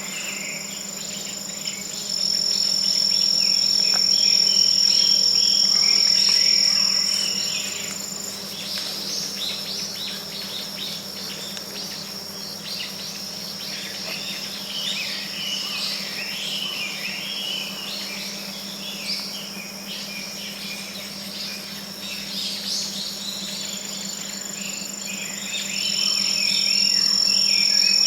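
Forest ambience: insects trilling in a steady high tone that fades out about a third of the way in and returns near the end, with scattered bird chirps throughout and a faint steady low hum underneath.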